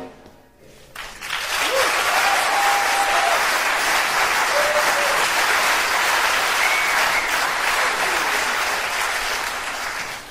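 Audience applauding, starting about a second in and tapering off near the end, with a few brief calls from the crowd over the clapping.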